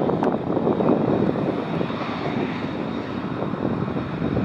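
Lockheed Martin F-35B's single Pratt & Whitney F135 turbofan running as the jet rolls along the runway: a steady, dense jet noise that eases slightly about halfway through.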